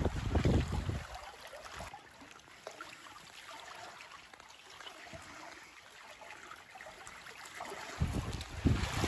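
Shallow seawater trickling and lapping at the shore, with wind buffeting the microphone in the first second and again from about eight seconds in.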